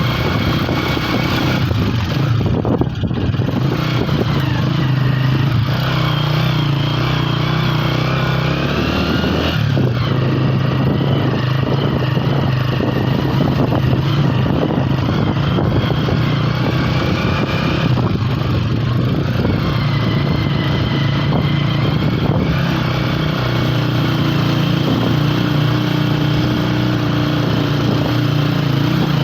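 Motorcycle engine running steadily while riding. Its note dips briefly about nine seconds in, then comes back up.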